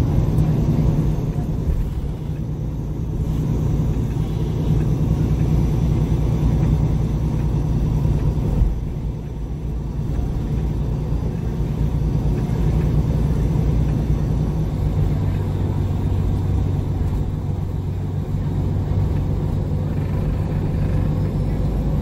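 MAN Lion's City G (A23) articulated bus's diesel engine idling steadily while the bus stands still. A deeper hum joins about fifteen seconds in.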